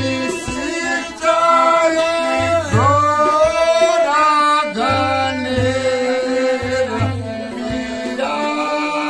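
A man singing a Ramlila verse in long held notes with sliding ornaments, over a harmonium's steady drone and regular low tabla strokes.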